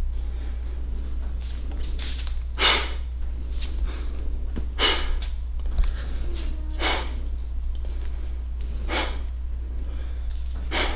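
A bodybuilder's short, forceful exhales as he hits and holds each pose, five of them about two seconds apart, over a steady low hum.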